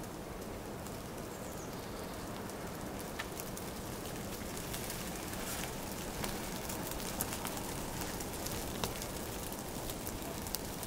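Steady outdoor background hiss with scattered faint ticks and taps, a few more of them in the second half.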